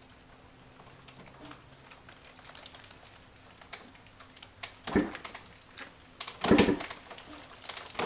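Light rain pattering with scattered small ticks, broken by a loud thump about five seconds in and a longer burst of thumping and clatter around six and a half seconds.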